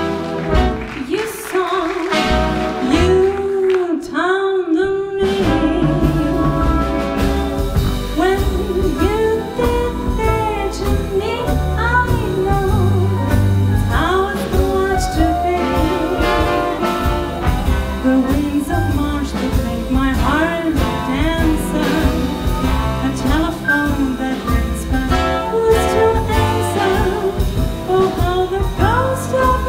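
A swing band playing a slow jazz ballad with a female vocalist singing lead over piano, guitar, horns, double bass and drums. The bass and drums come in about six seconds in.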